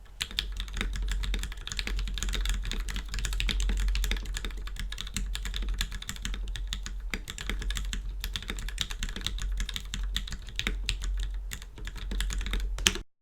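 Fast, continuous typing on a polycarbonate-case 65% mechanical keyboard with lubed, filmed Gateron Ink Black linear switches on a stainless steel plate: a dense run of keystrokes over a steady low hum, cutting off suddenly near the end.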